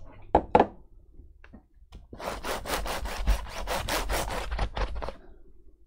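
A cloth rubbed briskly back and forth over a laptop keyboard and case, spreading spray polish: a run of quick wiping strokes, about five a second, starting about two seconds in and lasting about three seconds.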